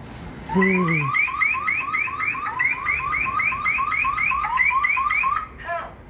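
Alarm on a G4S cash-in-transit van, set off from the guard's panic button, sounding a rapid electronic chirp about four times a second, each chirp rising in pitch. It starts about half a second in and stops shortly before the end.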